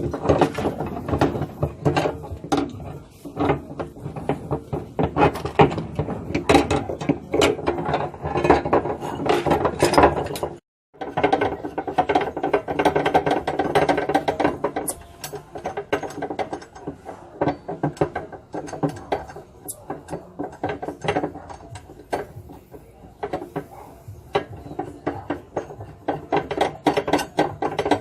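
Rapid metallic ratcheting and clicking of a hand tool working on a washing machine's gearbox parts, with a brief break about eleven seconds in.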